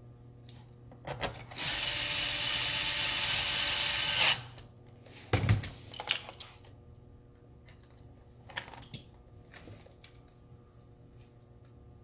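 Small cordless electric screwdriver running steadily for about three seconds, then stopping; a single thud follows a second later.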